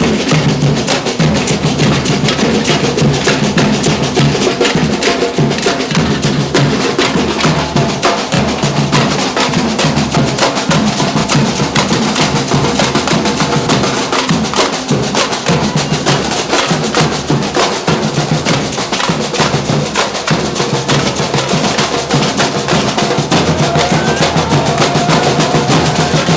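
A street drum band playing loud, fast, continuous percussion: snares, bass drums and wood-block clicks in a dense rhythm.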